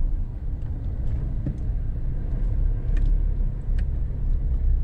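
Steady low rumble of a car driving along a paved road, heard from inside the cabin, with a couple of faint ticks.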